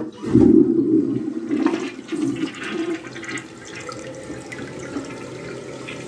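Mansfield Maverick dual-flush toilet flushing: a click at the start, then a loud rush of water into the bowl that eases into steady swirling. The flush fails to clear the wad of toilet paper in the bowl.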